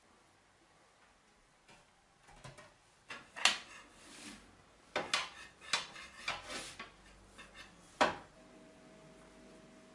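Metal utensils clinking and scraping against a metal baking tray: a handful of sharp clinks and knocks between about three and eight seconds in, the sharpest near the start of the cluster and at its end. A faint steady hum sets in just after the last clink.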